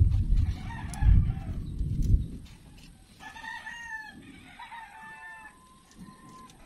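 A rooster crowing about three seconds in: one long call ending in a held note, with a fainter call about a second in. A loud low rumbling noise on the microphone fills the first two seconds.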